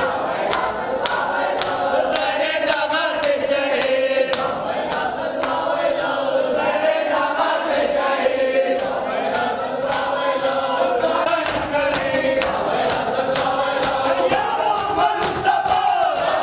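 A group of men chanting a noha, a Shia mourning lament, in chorus, with sharp rhythmic hand slaps about twice a second keeping time.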